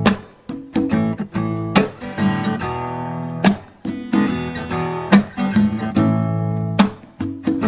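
Music: acoustic guitar strumming chords, each struck chord ringing on, with no singing yet.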